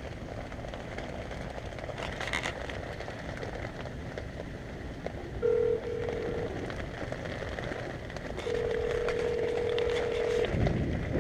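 Phone call ringing out: the ringback tone sounds twice, first in two short pieces about five and a half seconds in, then as a steady two-second ring about eight and a half seconds in, over a steady background hiss.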